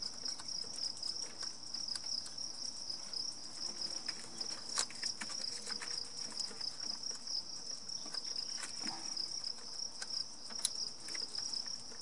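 Steady, high-pitched, rapidly pulsing trill of insects, with a few sharp clicks as the electrical connectors are pushed onto the fuel injectors, most clearly about five seconds in and again near the end.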